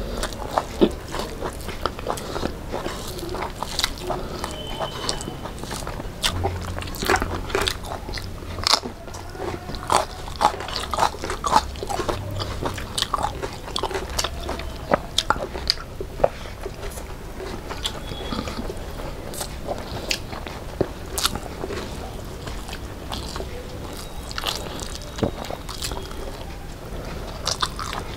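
Two people chewing and making mouth sounds as they eat rice, chicken and fried fish by hand, with many short, irregular clicks and smacks.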